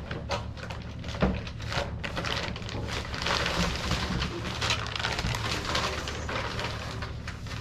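Packaging being handled and unwrapped from an exhaust H-pipe: a few sharp clicks and knocks, then a few seconds of dense crinkling and rustling, over a steady low hum.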